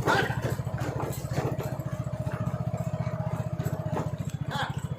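A small engine running steadily with a fast, even low putter, with a faint steady whine for a couple of seconds in the middle.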